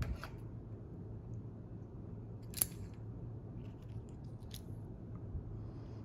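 Small objects being handled: a few light clicks and taps, the sharpest about two and a half seconds in, over a steady low hum.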